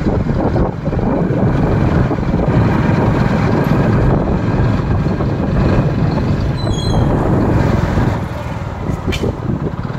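A motorcycle or scooter engine running steadily while riding, heard from the saddle with rushing road and wind noise. There is a short high squeak about seven seconds in.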